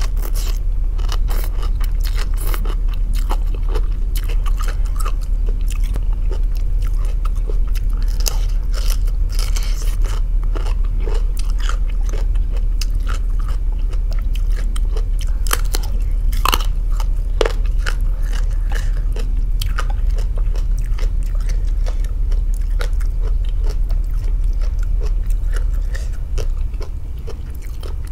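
Close-up eating sounds: a person biting and chewing crunchy raw cabbage and soft rice noodles, with scattered wet clicks and crunches, over a steady low hum.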